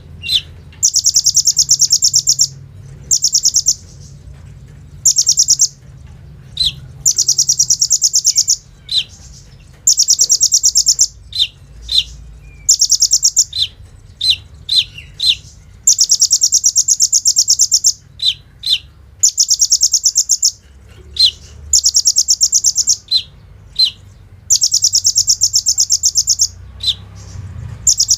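A sunbird (kolibri ninja) singing a song of mimicked fills: high, rapid, rattling trills about a second long, repeated over and over, with short, sharp chips between them.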